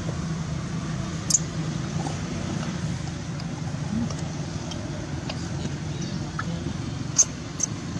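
Newborn macaque giving a few brief, high squeaks, one about a second in and two close together near the end, over a steady low hum.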